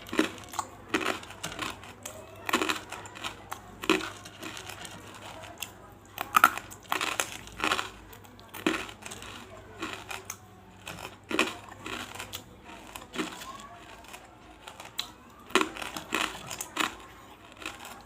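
Close-up mouth crunching of big pieces of banslochan (tabasheer, the chalky silica from bamboo): sharp, brittle crunches and cracks at an uneven pace of about one or two a second, with soft mouth sounds between them.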